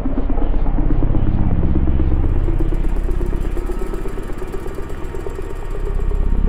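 Dark ambient drone music: a deep, rumbling low drone with a fast pulsing throb and a tone that slowly rises in pitch. A thin hiss joins about two seconds in.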